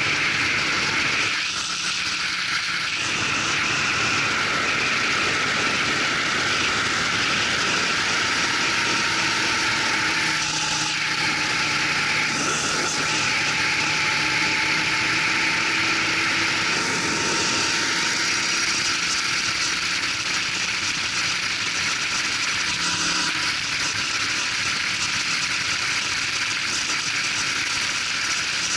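Racing go-kart engine running under load, heard from a camera mounted on the kart, with a steady rush of wind and road noise. Its pitch rises and falls slowly as the kart drives through corners, with a brief drop in loudness about two seconds in.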